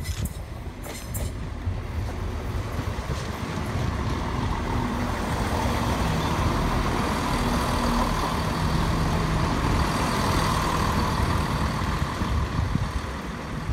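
CrossCountry Class 170 Turbostar diesel multiple unit passing close, its underfloor diesel engines humming and its wheels rumbling on the rails. The sound builds as the train draws alongside and its low engine note drops in pitch about eight seconds in.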